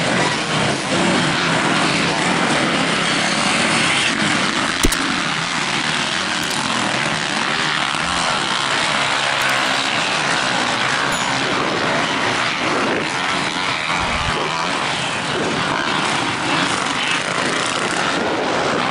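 Several motocross dirt bike engines revving and running around a dirt track, a dense buzz that rises and falls as the bikes accelerate. There is one sharp click about five seconds in.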